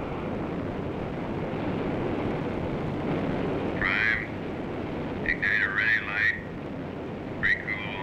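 Steady rushing noise of an air-to-ground radio link, broken by short garbled, warbling radio transmissions about four seconds in, again around five and a half to six seconds, and near the end.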